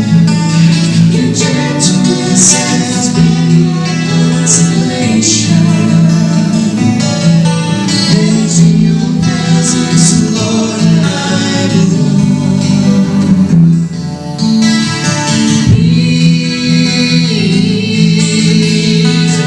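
A hymn sung with acoustic guitar accompaniment.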